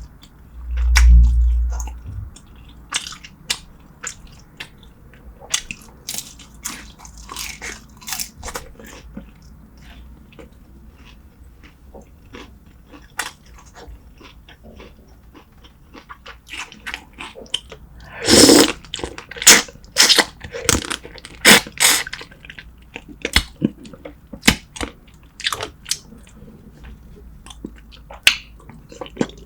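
Close-miked mukbang eating sounds: chewing, smacking and crunching on spicy braised seafood and short ribs, in many short sharp bites. A loud low thump comes about a second in, and the loudest run of bites and smacks comes about two-thirds of the way through.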